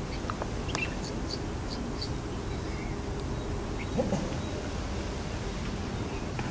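Red-vented bulbul fledgling begging as it is fed: short, high chirps come several times in the first two seconds, over a steady low background rumble. A brief lower sound comes about four seconds in.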